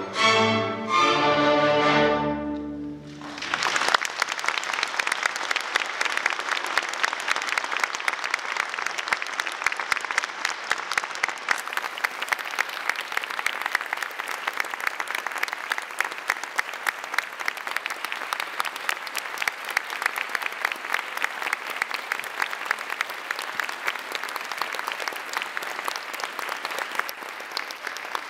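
A youth string orchestra plays the last chords of a piece, which stop about three and a half seconds in. An audience then applauds, fading near the end.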